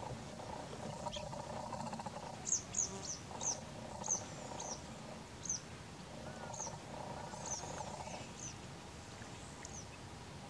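A small bird giving about a dozen short, high chirps, each sliding downward, spread over several seconds. Steady background noise runs beneath them.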